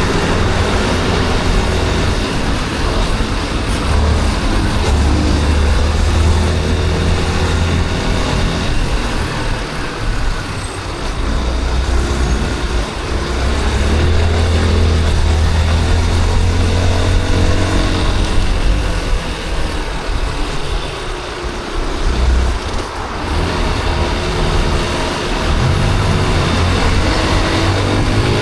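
Yamaha Crosser 150's single-cylinder four-stroke engine running under way, its pitch rising and falling as the rider speeds up and slows in traffic, with a steady rush of wind and road noise and the surrounding city traffic mixed in.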